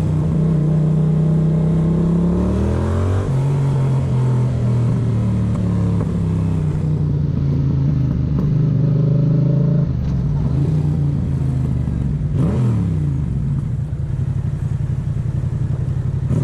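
Yamaha MT-07's 689 cc parallel-twin engine running under way through its exhaust. The revs climb and then drop sharply about three seconds in, hold steady for several seconds, and fall away again about twelve seconds in.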